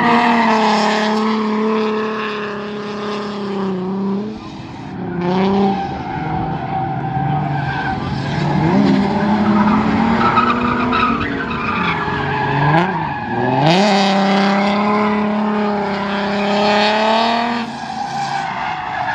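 Drift cars sliding through a coned course: engines held at high revs, with several quick drops and climbs in pitch around the middle, over the screech of tyres sliding sideways on asphalt.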